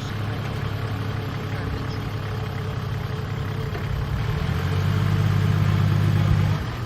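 4WD vehicle engine running steadily with a low hum, growing louder and working harder from about four seconds in, then easing off near the end.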